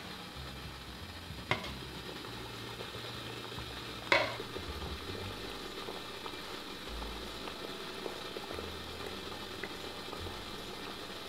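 Steady soft hiss of water boiling in a steamer pot under a bamboo steamer, with two sharp clinks, one about a second and a half in and a louder one about four seconds in.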